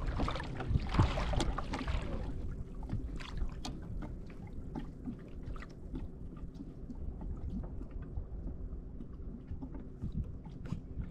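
Kayak on the water: a loud rush of water and wind noise for the first two seconds, then low sloshing with scattered light clicks and knocks.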